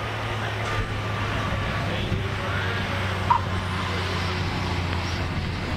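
Pitts S-2S aerobatic biplane's engine and propeller running with a steady low drone, faint crowd voices over it and a brief click about three seconds in.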